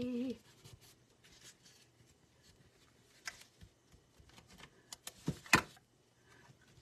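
Faint rustling of cardstock and paper pieces being handled and pressed down on a work surface, with a few light taps and one sharper click about five and a half seconds in.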